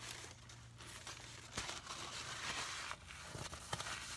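Paper food packaging being handled, rustling and crinkling with a few sharper crackles, a little quieter for the last second.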